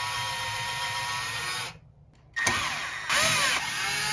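Cordless drill running in reverse, backing out a toilet seat bolt with a steady whine. It stops briefly a little under two seconds in, then starts again, its pitch dipping and rising as the load changes.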